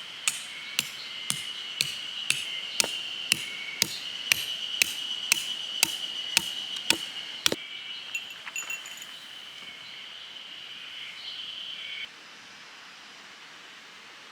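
A hammer striking a metal tent peg about fifteen times at an even pace of roughly two blows a second, stopping about seven and a half seconds in. A steady high-pitched drone of summer insects runs under it and cuts off suddenly near the end.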